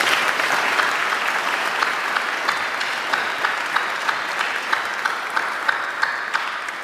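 Congregation applauding, with a few sharper single claps standing out, the applause slowly dying down toward the end.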